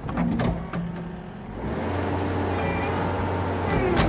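Skid steer engine coming up to high revs about two seconds in and running hard under load as the bucket pushes on a hung tree. A few knocks in the first second, and a sharp crack near the end where the engine note briefly dips.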